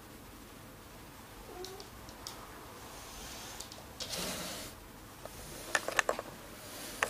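Siamese cats meeting: a brief rushing noise about four seconds in as the older cat dashes toward the kitten, then a quick cluster of sharp taps and clicks about six seconds in, the loudest sounds.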